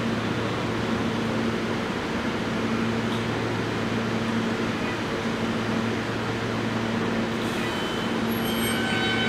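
R160A subway train standing at the platform, its onboard equipment giving a steady low hum. Near the end a higher whine of several tones comes in as the propulsion motors start to move the train out.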